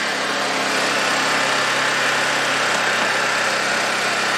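Honda EU2200i inverter generator's single-cylinder four-stroke engine running steadily on propane through a conversion kit, with no load and its spark-plug access cover closed. It is starting to run rough again, which the owner takes for a propane mixture that is a little too rich.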